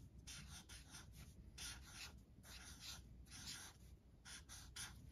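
Felt-tip marker writing block capital letters on paper: a faint series of short scratchy strokes with brief pauses between them.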